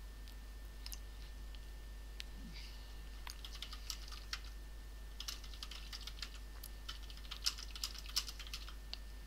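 Typing on a compact external computer keyboard: faint scattered key clicks, sparse at first and coming thicker in the second half, over a low steady hum.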